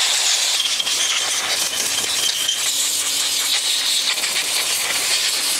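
Steady hiss of a spray jet blown over the gearbox oil pump parts to clean them.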